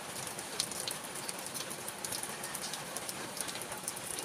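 Steady rain falling, an even hiss with many small drop taps.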